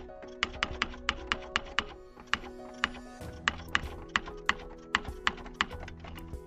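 Computer keyboard typing: quick keystroke clicks at about four a second, with a short pause midway. Soft background music with sustained notes plays underneath.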